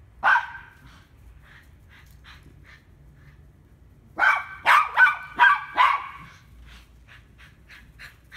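Miniature pinscher barking in a high, sharp voice: one bark at the start, then a quick run of about five barks about four seconds in, with fainter short yips in between and trailing off afterwards.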